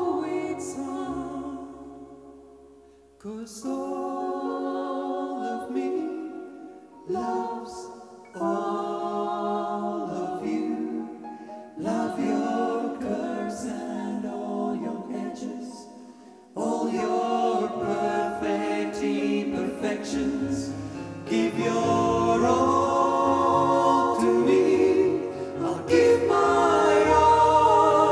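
Male vocal group singing slow, sustained close harmony in several chords, in phrases a few seconds long that each begin sharply after a brief dip.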